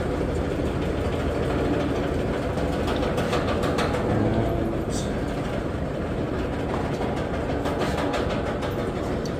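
A steady low mechanical drone, with a few light clicks and knocks over it.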